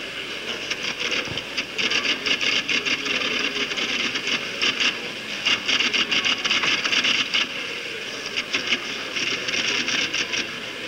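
Office machines clattering with rapid runs of keystrokes, including an electric typewriter. The clatter comes in bursts with short pauses between them.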